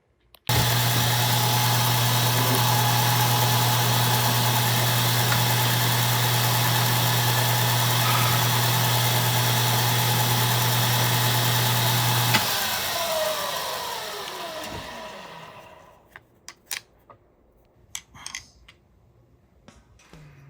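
Pantograph mill's spindle motor switched on, running steadily with a constant hum for about twelve seconds, then switched off and spinning down with a falling whine. A few light clicks follow.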